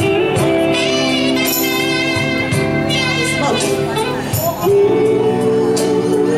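Live band music with long held notes and a tambourine jingling.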